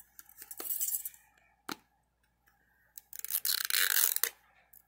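Plastic wrapper layer of an L.O.L. Surprise ball being picked at and peeled off, crinkling in two bursts, the longer and louder one about three seconds in, with a sharp click in between.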